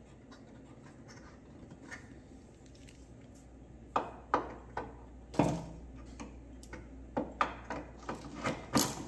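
Hand tools on an engine mount bolt: a ratchet with a socket on a long extension clinking and clicking as it is set onto the bolt. The sounds start about four seconds in as scattered separate clicks and knocks, the loudest about a second later, then come closer together near the end.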